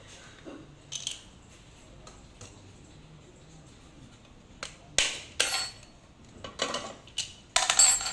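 Metal tools and parts clinking and knocking during work on an exercise bike's centre shaft and crank: a few faint clinks, then a run of sharper metallic knocks from about five seconds in, the loudest cluster near the end.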